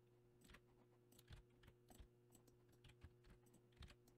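A handful of faint clicks of computer keyboard keys being pressed, roughly one a second, over a faint steady hum.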